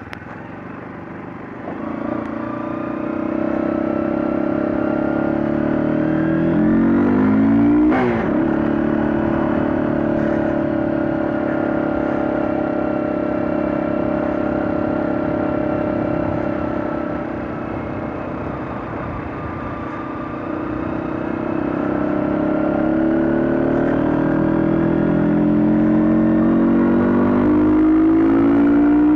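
Honda CBR125's single-cylinder four-stroke engine under way, pulling through the gears. The revs climb and drop sharply at a gear change about eight seconds in, hold steady, ease off around twenty seconds, then climb again near the end.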